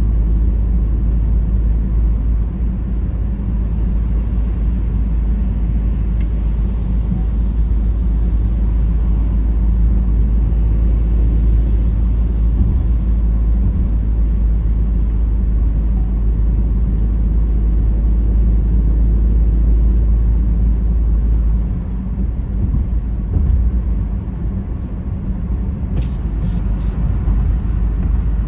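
A car driving: a steady low rumble of engine and tyres on the road. The rumble eases about three-quarters of the way through, and a few light clicks come near the end.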